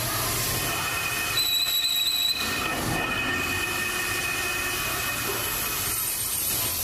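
Metal lathe running, with a steady high whine from the spinning chuck and the cutting tool working the meat grinder's threaded part. A louder, sharp metallic squeal comes in about one and a half seconds in and lasts about a second.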